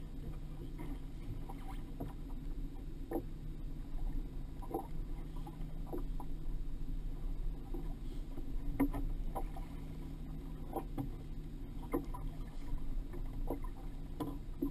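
Waves slapping and knocking against a small fishing boat's hull on choppy water, irregular knocks about a second apart over a steady low rumble.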